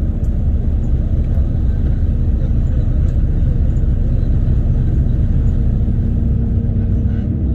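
Steady low rumble of engines running, with a faint constant hum.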